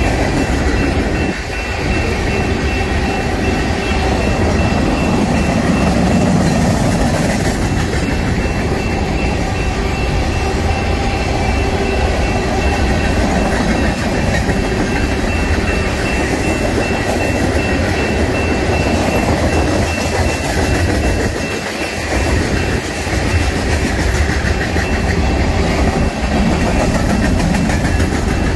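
Freight cars of a long mixed freight train rolling past close by: a steady, loud rumble of steel wheels on rail with rhythmic clickety-clack.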